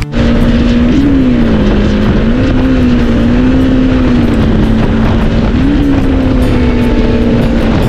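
Motorcycle engine running steadily at highway speed, its note rising briefly about a second in and again near the six-second mark as the throttle changes, over a heavy low rush.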